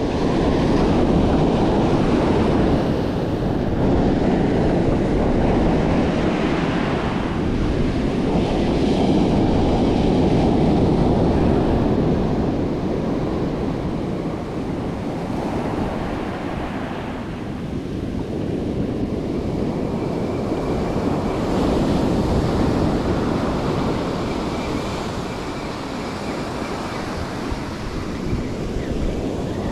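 Ocean surf breaking and washing up a sandy beach, swelling and ebbing with each set of waves, with wind buffeting the microphone.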